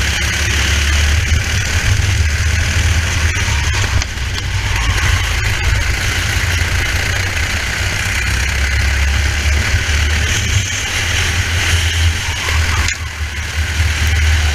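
Race kart engine running under racing load, heard from a helmet-mounted camera, with its level dipping briefly a couple of times.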